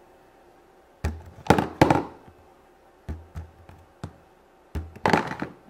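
Small plastic toy figures knocked over onto a hard tabletop, and a plastic slime tub being handled: a string of sharp knocks and taps in three clusters, some with a dull thud under them.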